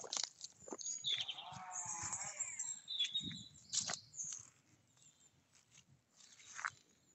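Small birds chirping in short high calls, with one longer wavering animal call, like a bleat, starting about a second in and lasting about a second and a half.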